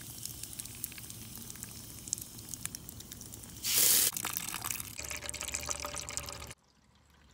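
Water dripping and splashing onto bare soil from a brass backflow preventer, with a short, much louder rush of water spraying out of the valve body about three and a half seconds in. The water sound cuts off abruptly near the end.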